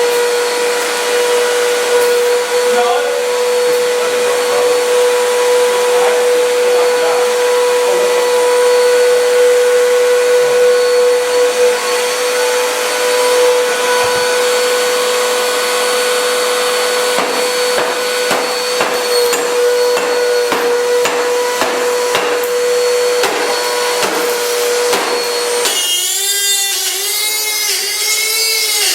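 Dirt Devil upright vacuum cleaner motor running with a steady whine, with scattered rattles and knocks over its second half. The whine cuts off about 26 seconds in, and a wavering warble follows.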